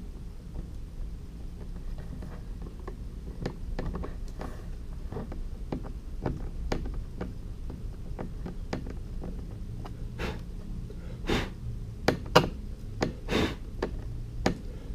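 Small clicks and knocks of hand work on the plastic seat bracket, then, in the last few seconds, several short sharp puffs of air clearing plastic shavings stuck in a freshly drilled hole.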